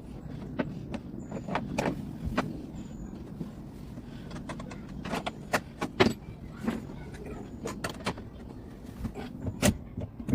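Irregular knocks, taps and clunks of tools working on old timber supports and bolts inside a fibreglass boat, louder and more frequent near the end.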